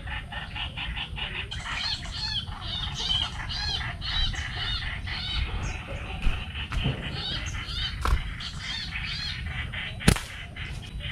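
Small birds chirping rapidly and repeatedly. About ten seconds in comes a single sharp snap as a rubber-band slingshot is shot.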